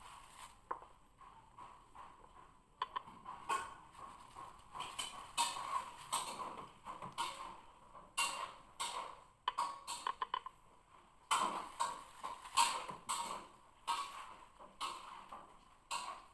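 Irregular clicks, taps and knocks of something being handled, coming thicker from about three seconds in.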